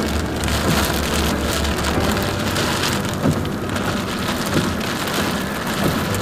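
Heavy rain drumming on a car's windscreen and roof, heard from inside the cabin, over the steady low rumble of the car driving on a wet road.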